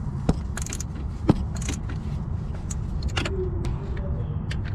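Hand tools clinking against metal engine parts: a socket and ratchet being fitted onto the 10 mm thermostat housing bolts. There are a few separate sharp clicks, the loudest about a second in, over a steady low rumble.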